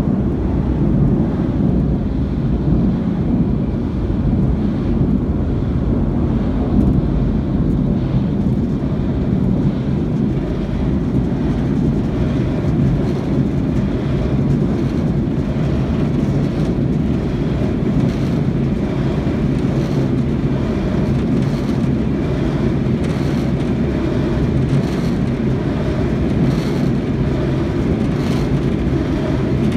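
Automatic car wash machinery running, heard through the car's closed cabin: a loud, steady, deep rumble, with faint scattered clicks from about twelve seconds in.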